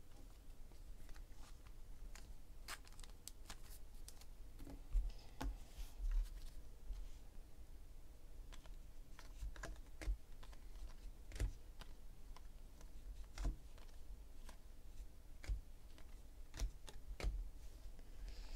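Trading cards handled by hand: flipped through in a stack and dropped onto piles on a table, giving irregular light clicks and taps with a few soft thumps.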